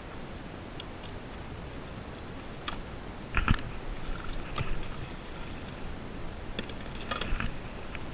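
Light clicks and knocks of gear being handled aboard a small fishing skiff over steady wind and water noise, with one louder thump about three and a half seconds in.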